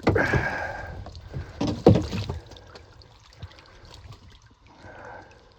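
Water sloshing and splashing around a small boat as it is brought in to shore, with a single sharp knock just under two seconds in.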